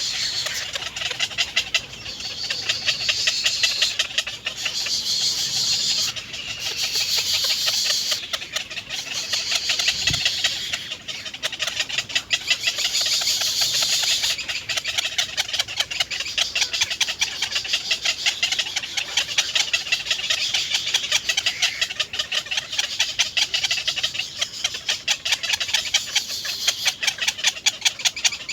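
Nestlings' begging calls: rapid, continuous high-pitched chirping that swells and fades every couple of seconds as the chicks beg to be fed.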